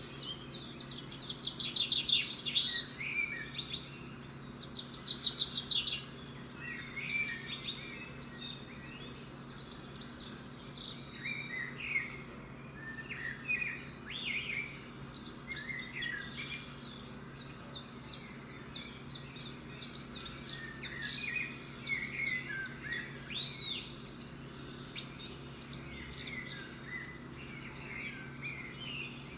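Recorded chorus of many birds chirping, whistling and trilling, over a steady low hum. Fast trills are the loudest, twice in the first six seconds, followed by a busy mix of shorter calls.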